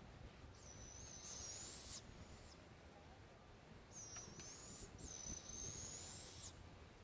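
Two juvenile barred owls giving raspy, hissing begging calls: four drawn-out screeches, the first and the last about a second and a half long and rising in pitch at the end, with two shorter ones between.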